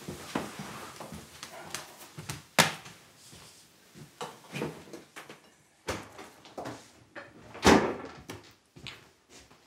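Household doors and kitchen cupboards being opened and shut: a string of knocks and clicks, with two sharp bangs, one about two and a half seconds in and one at nearly eight seconds.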